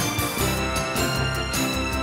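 Background music with a steady beat and held electronic notes.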